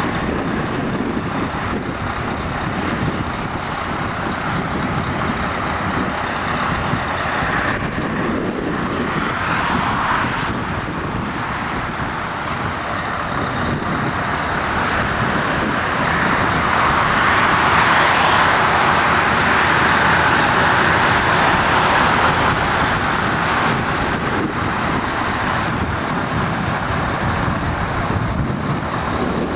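Scania R500 truck's V8 diesel engine running steadily, growing louder for several seconds in the middle before settling back.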